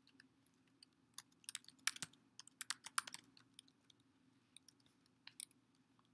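Typing on a computer keyboard: irregular key clicks, coming in a quick flurry in the first half and thinning out toward the end, over a faint low hum.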